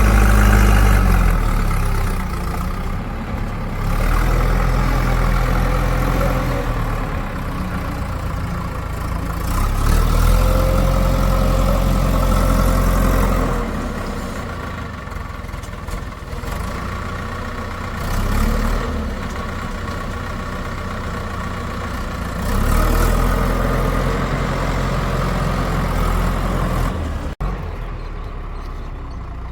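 Heavy diesel engine of a backhoe loader running, rising repeatedly to higher revs under load for a few seconds at a time, then dropping back toward idle, as it works its hydraulics digging and loading mud.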